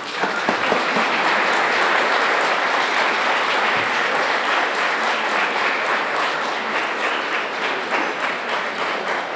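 Crowd applauding: many hands clapping in a dense, steady patter that eases slightly toward the end.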